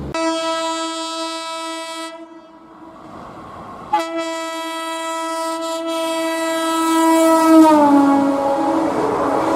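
WAP4 electric locomotive's horn sounding two blasts, a short one, then after a pause a longer one that drops in pitch near the end, giving way to the rumble of the passing train. The honking warns track maintenance workers on the line ahead.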